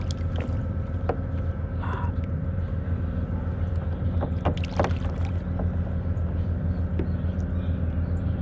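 A steady low engine hum, with a few short knocks: one about a second in, a cluster a little past the middle, and one later.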